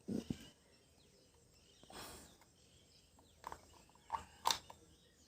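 A pair of dull knocks at the start, a short scraping rustle about two seconds in, then three sharp clicks near the end, like small metal parts being handled, with faint birdsong behind.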